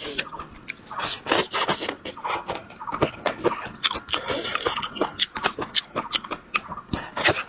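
A person chewing a mouthful of food close to a clip-on microphone, with quick irregular mouth clicks and smacks.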